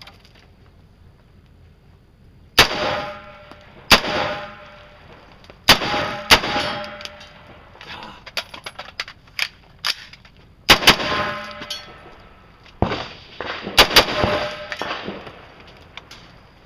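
Rifle shots on a range, fired one at a time at uneven gaps: about eight loud shots, two of them nearly back to back near the middle, each trailing off in a short echo, with fainter shots in between.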